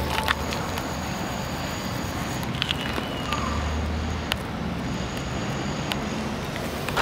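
Steady wind noise on a handheld camera's microphone, with low rumbling gusts and a few sharp clicks.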